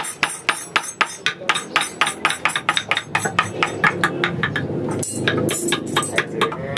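Wooden mallet striking a carving chisel into rosewood: quick, light, even taps at about five a second.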